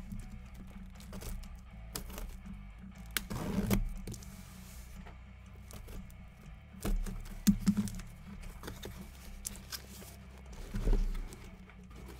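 Clicks, knocks and crinkling of sealed boxes of sports cards being handled and moved on a table, with louder rustles about three and a half seconds in, around seven to eight seconds in and near the end. Quiet background music runs underneath.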